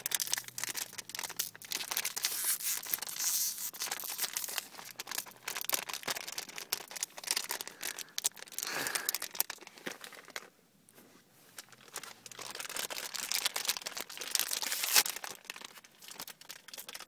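A Moshi Monsters Series 4 blind-bag packet being torn open and crinkled by hand: a run of crackling and ripping, with a short lull about ten seconds in and one sharp crack near the end.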